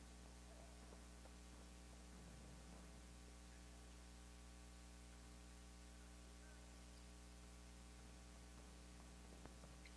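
Near silence with a steady low electrical hum, and one faint tick near the end.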